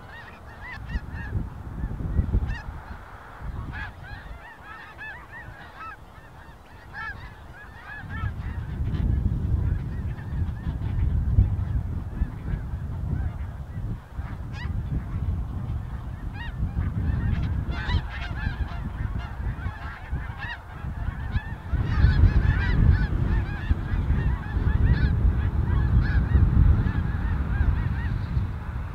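A large flock of snow geese calling, many short overlapping honks throughout. A low rumble of wind buffeting the microphone comes up about eight seconds in and again louder near the end.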